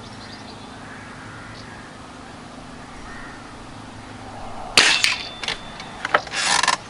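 Remington Warhawk .22 spring-piston air rifle firing a single shot near the end: a sharp crack with a brief ringing tone after it, followed by a few clicks and a short rattle of the rifle being handled.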